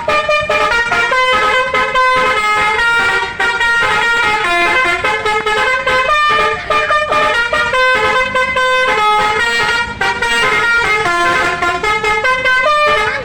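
Bus telolet horn, a Basuri multi-tone air horn, playing a fast melody of several notes at once that change pitch every fraction of a second.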